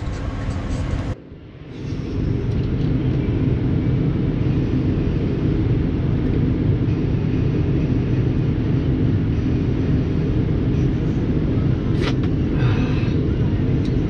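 New Holland tractor's diesel engine running steadily, heard from inside the cab as a low hum. The sound drops away briefly about a second in, then returns.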